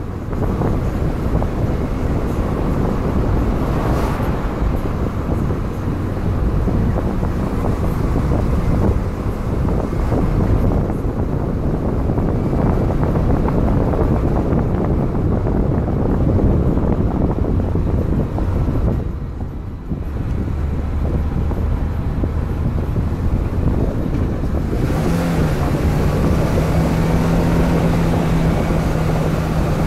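Wind buffeting the microphone of a car-roof camera, over the steady noise of a car driving along a road. About 25 seconds in, a steady low hum comes up over the noise.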